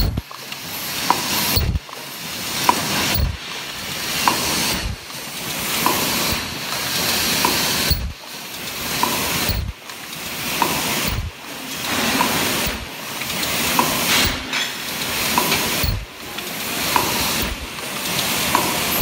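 MG-HC double-wall paper cup making machine running in its steady cycle: a hiss of air that builds and breaks off about every second and a half, each break marked by a low knock, with a light click partway through each cycle.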